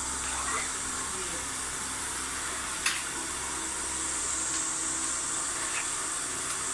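Electric fan running steadily, with one sharp click about three seconds in.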